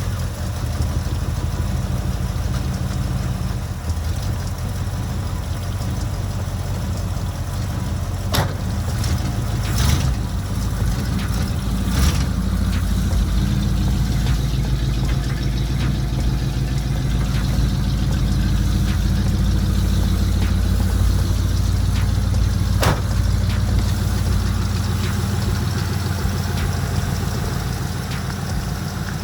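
Vehicle engine idling steadily just after starting, with a few sharp clunks about a third of the way in and once more near the end.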